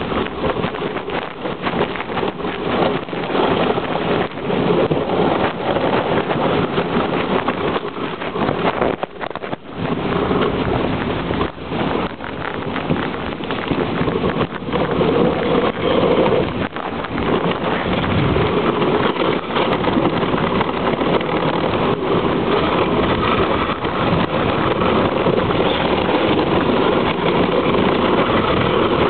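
Dogsled runners hissing and scraping over snow at speed, with scattered knocks from the sled and wind buffeting the microphone.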